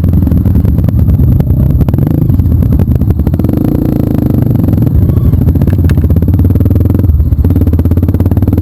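Off-road trail motorcycle engine running loud and close, with a rapid low pulsing and some clatter; the engine note dips briefly about seven seconds in.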